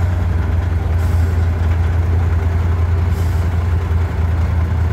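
Truck trial competition truck's diesel engine running with a deep, steady drone at low revs as the truck crawls over a steep dirt mound.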